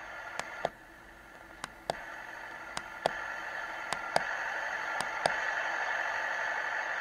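Five pairs of clicks as the volume button on the sound circuit board inside an HO scale refrigerated container is pressed and released through a roof hole. Under them the container's sound unit plays a steady hissing hum, its refrigeration-unit sound, through a small speaker; it drops after the first press, then gets louder in steps with each later press as the volume levels cycle.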